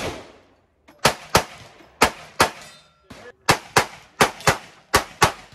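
Hand-cranked replica M1862 .58-calibre Gatling gun firing as its crank is turned: about a dozen sharp shots, mostly in pairs with uneven gaps between them.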